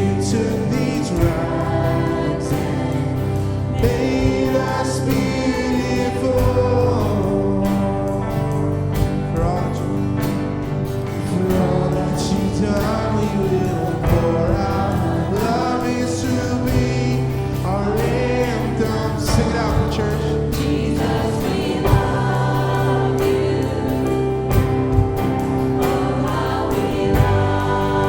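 Contemporary worship music: a church band playing with voices singing along, with sustained chords and occasional drum hits.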